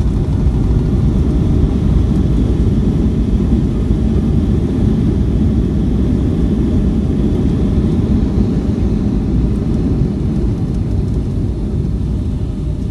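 Jet airliner's landing rollout heard from inside the cabin: a loud, steady low rumble of the aircraft running down the runway just after touchdown, easing off slightly near the end.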